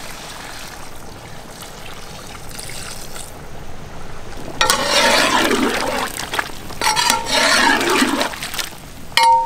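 Water poured from a bowl into a large pot of beef over a wood fire, then the meat and water sloshed about with a metal ladle in two louder spells, with a short metallic clink near the end.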